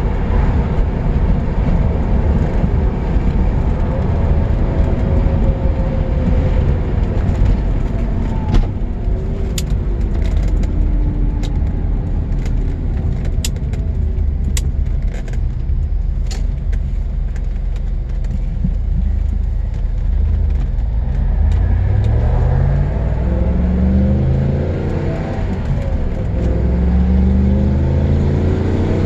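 Lancia Thema 8.32's Ferrari V8 running under way with a steady low rumble. From about three quarters of the way in, the engine accelerates, its note climbing in pitch, dropping back at gear changes and climbing again.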